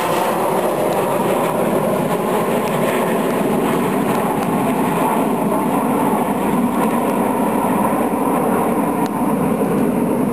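Jet engines of the Red Arrows' formation of BAE Hawk jets flying overhead: a loud, steady rushing noise that holds level throughout.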